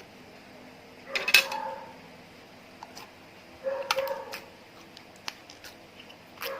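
Slime being squeezed and pressed by hand: three short bursts of squelching and crackling pops, with brief squeaks of trapped air.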